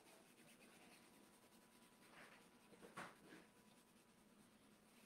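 Near silence with faint handling sounds from a silk-screen transfer being positioned on a wooden board: a soft rub about two seconds in and a brief scrape about three seconds in.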